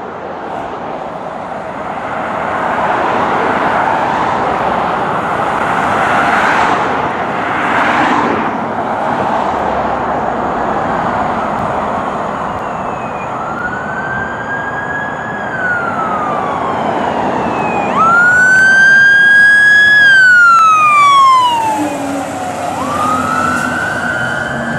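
Emergency vehicle sirens of a responding fire engine and ambulance. For about the first half there is a loud rushing noise with no clear pitch. Then a siren wails in long sweeps, each rising, holding high, then falling slowly, and it is loudest about three-quarters of the way through.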